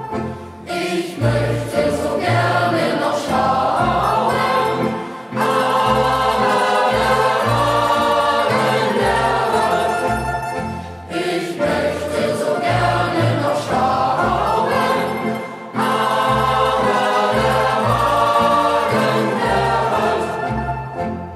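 A youth choir singing a German Fahrtenlied, a strophic hiking song, in unison, with instrumental accompaniment over a steady bass beat. It pauses briefly between phrases.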